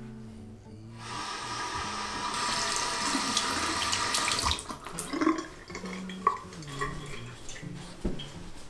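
Water running from a bathroom basin tap over hands being washed. The steady rush starts about a second in, then breaks up into uneven splashing with a few sharp knocks.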